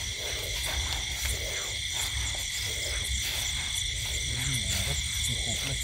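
Night chorus of crickets and frogs: steady high-pitched insect trilling at several pitches over a low rumble.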